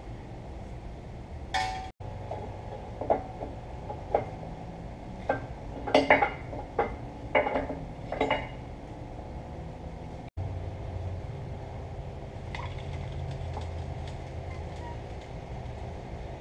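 A series of short, light metallic clinks and clanks, like hard metal objects knocking together, then a steady low hum that comes in abruptly about two-thirds of the way through.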